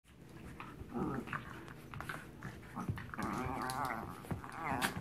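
A small dog growling and whining in play as it wrestles a blanket, with wavering calls about a second in and again through the second half, and the blanket rustling and scuffing throughout.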